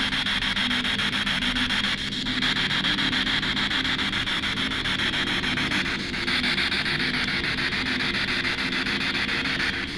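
Handheld spirit box (P-SB7 radio sweep device) scanning through radio stations: loud, steady hissing static chopped very rapidly, with brief dips about two seconds and six seconds in.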